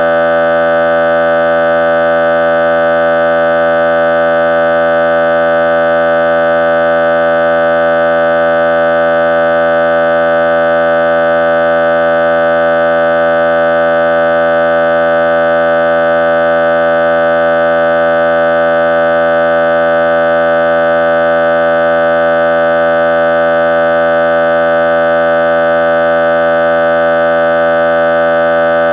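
A loud, steady electronic buzzing tone, several pitches held together without any change in pitch or loudness.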